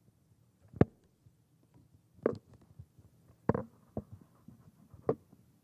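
Handling noise from a handheld microphone: five separate knocks and thumps as it is lowered and set down on a wooden lectern, the sharpest about a second in.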